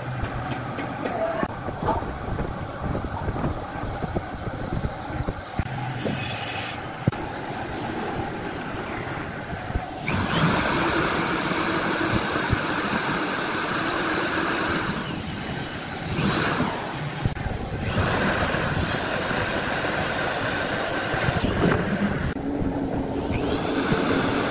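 Corded electric drill running under load as it bores holes into a wooden frame, in runs of a few seconds with short stops between holes. Before that come light knocks and clicks of wooden parts being fitted together by hand.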